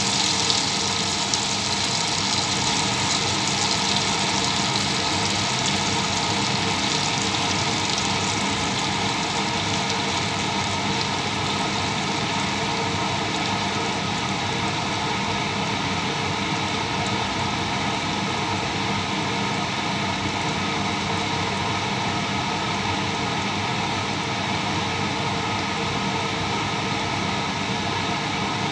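Steady mechanical hum and hiss with several held tones, unchanging throughout.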